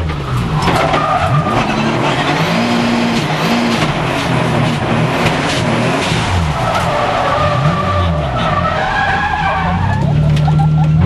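Drift car's engine revving up and down hard while its rear tyres squeal through a sideways slide, heard from inside the cabin. The tyre squeal is strongest about a second in and again from about six to ten seconds. Near the end the engine settles to a steadier note as the car slows.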